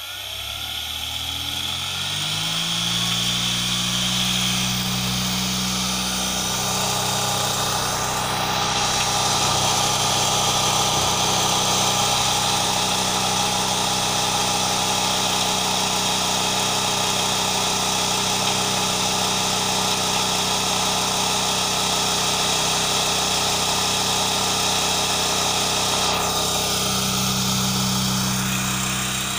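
Cotton candy machine's motor and copper spinner head starting up, speeding up over the first couple of seconds, then spinning steadily at full speed with a loud hum and whir, on a test run of its heat-resistant shaft coupling.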